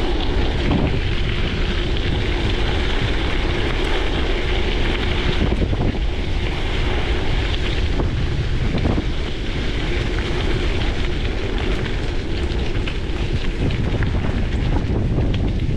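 Wind buffeting the microphone of a chest-mounted action camera while riding a gravel bike, over the steady rush of tyres rolling on gravel with scattered small ticks.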